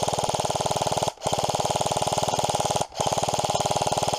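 Airsoft rifle firing on full auto in three long, rapid bursts, with short pauses a little over a second in and near three seconds in.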